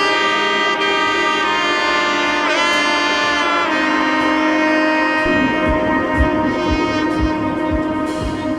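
Background music: a melody of long held notes with a short bend in pitch, joined about five seconds in by a steady low drum beat.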